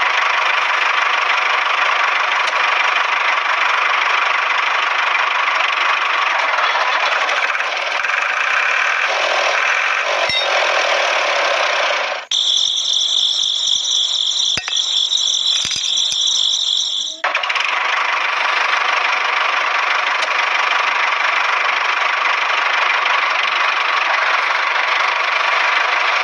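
Small electric motor of a toy straw blower running steadily with a dense whir. About twelve seconds in it gives way to a higher, thinner whine for some five seconds, then the steady whir returns.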